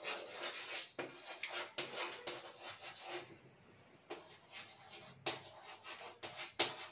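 Chalk writing on a blackboard: a run of short scratching strokes, a brief pause a little after three seconds, and two sharper taps of chalk on the board near the end.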